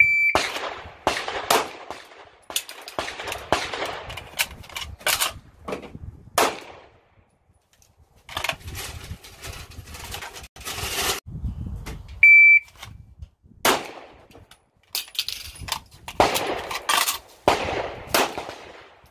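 A shot timer's short electronic start beep, then a quick string of handgun shots. About twelve seconds in a second beep sounds, followed by another string of shots.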